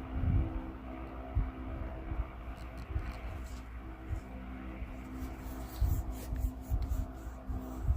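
Human stomach growling: irregular low rumbles and gurgles picked up close, over a steady low hum.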